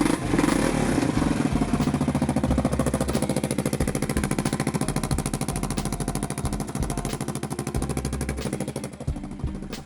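Kawasaki Brute Force 650 ATV's V-twin engine idling with a rapid, even exhaust pulse, blowing out through a hole at a seam in the exhaust, which leaves it running rough. It drops a little in level near the end.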